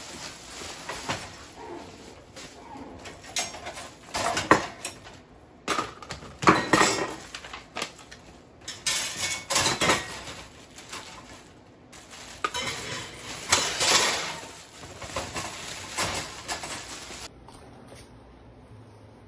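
Plastic wrap crinkling and rustling while a dish drying rack is unpacked, with the rack's parts clattering and knocking together in irregular bursts.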